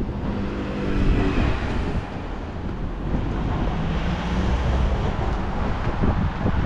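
A motor vehicle passing, with wind buffeting the microphone.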